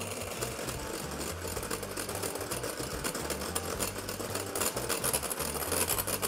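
Electric hand mixer running steadily, its wire beaters whipping egg whites and lemon juice to a soft, foamy stage in a glass bowl, with rapid clicking throughout.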